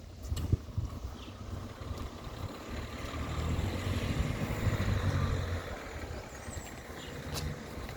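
A motor vehicle passing by, its engine and tyre noise rising over a couple of seconds and fading away again.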